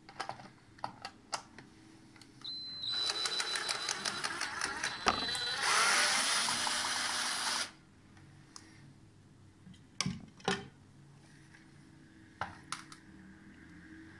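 Cordless drill-driver unscrewing the centre screw of a wall socket's cover plate. Its motor runs for about five seconds with a high whine and a fast ticking, then louder and steadier, and stops sharply. Clicks and knocks from handling the plastic cover come before and after it.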